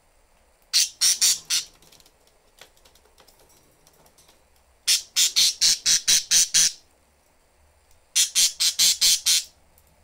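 Budgerigars calling in three runs of quick, sharp, high-pitched squawks, about five notes a second: a short run of four about a second in, a longer run of about nine in the middle, and one of about seven near the end.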